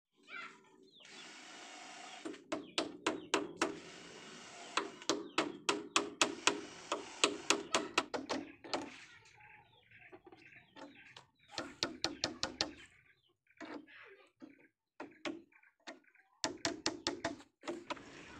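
Hammer blows on the wooden planks of a boat hull being nailed together: quick runs of sharp strikes, about four a second, in several bursts with short pauses between.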